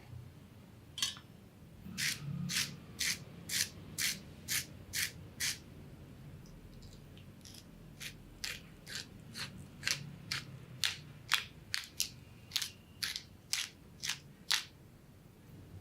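Kitchen knife cutting crisp vegetables on a cutting board, in two runs of steady, crunchy strokes about two a second.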